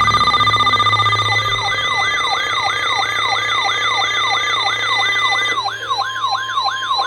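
Electronic alert siren sweeping in pitch over and over, about three times a second, layered over a steady alert tone. About five and a half seconds in, the steady tone changes to a single, slightly lower tone while the sweeping goes on.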